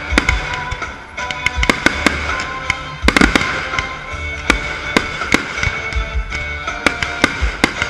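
Fireworks bursting and crackling in quick succession, many sharp bangs, over music with a pulsing bass.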